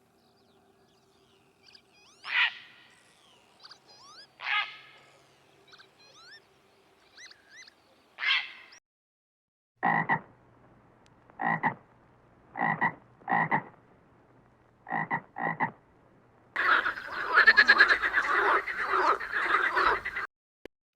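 Frogs croaking. First come a few drawn-out raspy croaks with faint whistling glides behind them, then six short, loud croaks, then a dense chorus of croaking that stops abruptly shortly before the end.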